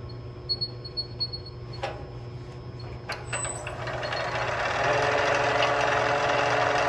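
Wood lathe running with a steady low hum. Two sharp knocks as the tool rest is adjusted and the gouge is picked up, then a hiss that builds from about halfway in as the bowl gouge comes to the spinning wooden bowl blank.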